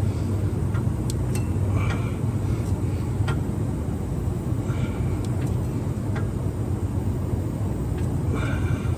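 Steady low mechanical rumble with a few sharp clicks.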